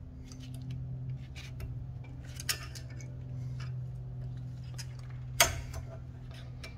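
Small metallic clicks and taps of pliers working a cotter pin through the CV axle nut, bending its legs back, with one sharper click about five and a half seconds in. A steady low hum runs underneath.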